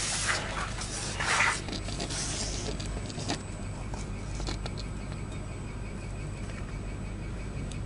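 Paper sheets rustling and a hand sliding over a bare poplar wood board in the first two seconds, then a few light ticks from a pen marking the wood, over a steady low background hum.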